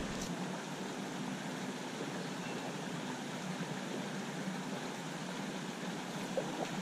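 Steady, even hiss of a shallow trout stream's running water.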